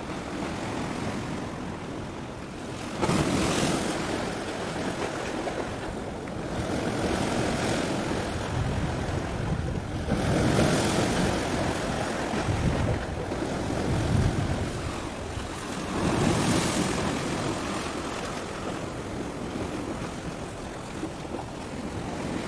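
Wind buffeting the microphone over the wash of sea waves, a steady rushing noise that swells in gusts every few seconds.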